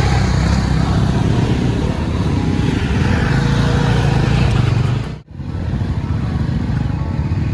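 Motorcycle engine running steadily, with wind and road noise over it; the sound drops out abruptly about five seconds in and picks up again.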